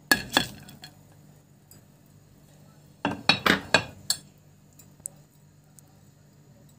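Clinks of kitchenware against a cooking pot: two sharp clinks at the start, then a quick run of five or six clinks about three seconds in.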